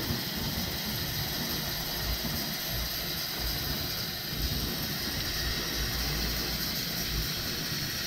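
Cold water running steadily from a kitchen faucet into a stainless steel saucepan of turkey giblets as the pot fills.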